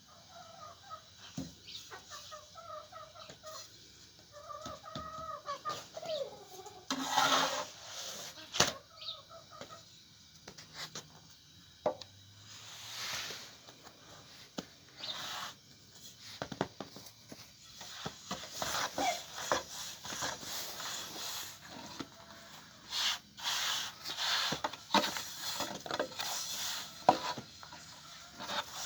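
Chickens clucking in short repeated calls for the first several seconds, then a run of irregular knocks, clatters and scraping noises.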